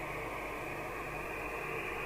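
Rotel RVC240 27/81 FM CB radio's speaker giving a steady hiss of received static while the set listens on the air through a roof aerial.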